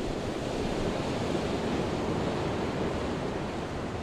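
Choppy open sea: a steady rush of waves and surf with wind, swelling a little in the middle.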